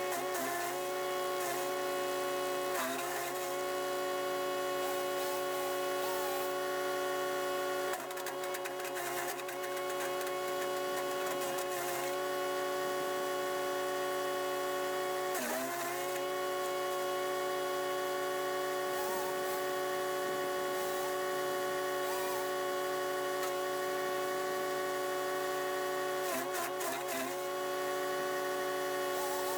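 Chipease D1500E wood chipper's 420cc four-stroke engine running steadily at high speed. Its pitch dips briefly and recovers several times as it takes the load of branches being fed in, with a stretch of crackling from chipped wood about a third of the way through.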